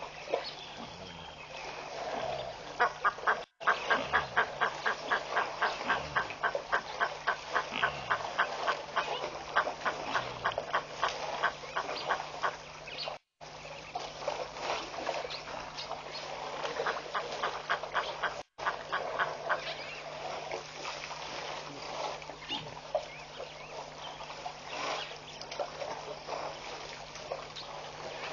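A bird calling in long, fast runs of short repeated notes, about four a second, one long run in the first half and another shorter one later. The sound cuts out for an instant three times.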